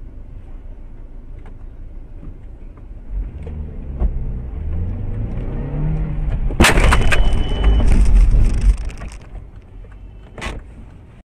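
Road vehicle crash: engine and road noise with the engine note rising, then a sudden loud impact about six and a half seconds in, followed by about two seconds of crashing noise that dies away. A single short knock comes near the end.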